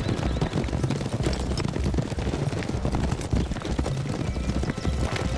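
Horses galloping: a dense, continuous run of hoofbeats with a low rumble.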